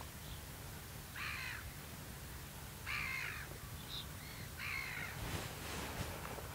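A crow cawing three times, one call about every second and a half.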